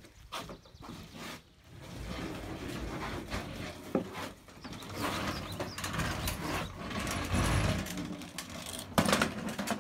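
Walk-behind lawn mower being dragged and wheeled across a wooden shed floor, its wheels and frame rattling, with one loud knock near the end.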